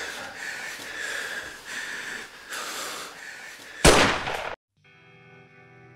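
A person breathing hard in uneven breaths, then a single loud pistol shot about four seconds in, cut off abruptly. Faint guitar music starts near the end.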